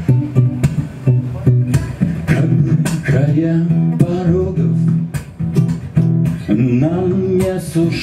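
Acoustic guitar strummed in a steady rhythm, with a man's singing voice coming in about three seconds in.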